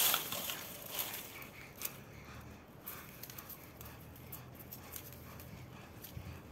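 Two cats locked in a fight on dry leaves: a sharp rustle at the start, then scattered soft scuffles, with a faint low steady growl from about two seconds in.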